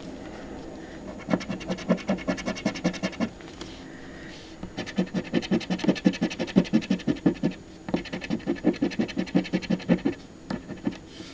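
Scratch-off lottery ticket being scratched: rapid back-and-forth strokes, about nine a second, in three runs separated by short pauses.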